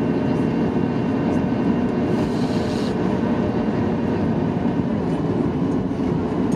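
Cabin noise of a Boeing 737-800 taxiing after landing: a steady low rumble, with its CFM56-7B turbofan engines running at idle and giving a faint steady whine. A brief higher hiss comes about two seconds in.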